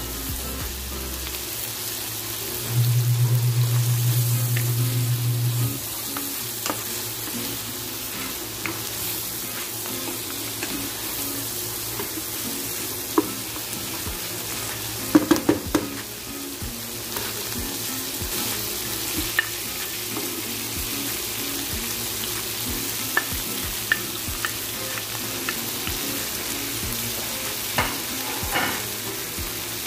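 Lamb pieces with onions and chilies sizzling in a frying pan, with a steady hiss, while a wooden spatula stirs them, scraping and clicking against the pan now and then, most sharply about halfway through.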